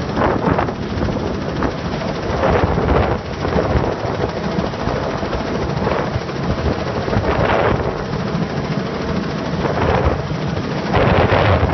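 Small helicopter flying low overhead, its main rotor beating in a rapid, continuous chop along with the engine.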